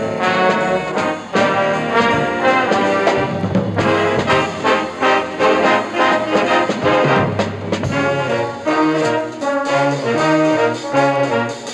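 High school band playing from a 1965 LP recording, brass carrying the tune over a bass line that steps from note to note in the second half.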